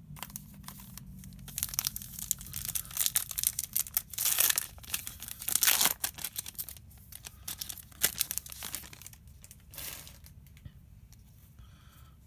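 Shiny plastic wrapper of a Topps baseball card pack being torn open and crinkling, loudest about four to six seconds in, then a few separate crackles before it settles.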